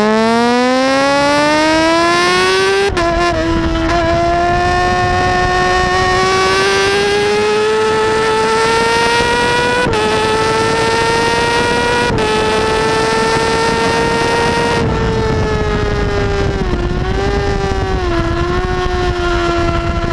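Kawasaki ZX-6R inline-four engine at high revs under hard acceleration, with heavy wind rush. The pitch climbs steadily, dropping slightly at upshifts about three, ten and twelve seconds in, then falls with a few dips and wobbles over the last few seconds as the bike slows for a corner.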